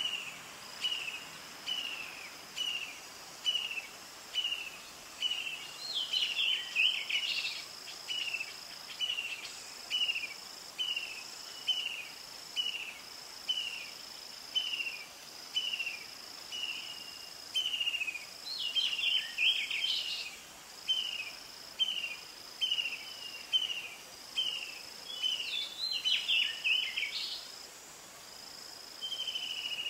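Bird and insect sounds: a short falling chirp repeated steadily about twice a second, under a high insect buzz that pulses on and off about once a second. Three times a brief burst of quick warbling bird song breaks in.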